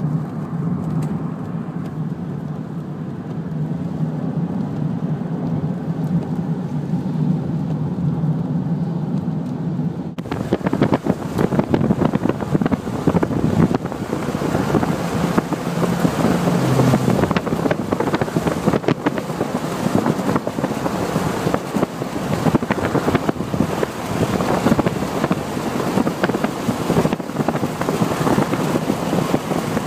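Steady car road and engine noise heard from inside the moving vehicle. About ten seconds in, it changes abruptly to loud, gusty wind buffeting the phone's microphone.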